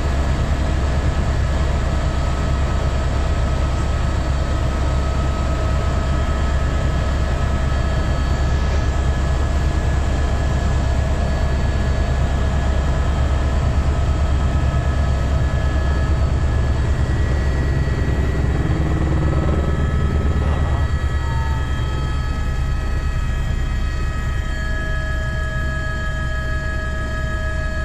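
Helicopter cabin noise in steady flight: a loud low rotor drone with fine rapid pulsing, under several steady whining tones from the engine and transmission. The noise eases off slightly in the last few seconds.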